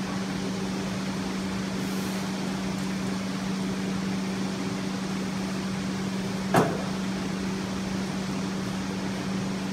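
Steady machine hum, a low pitched drone with overtones, with a single sharp knock about two-thirds of the way through.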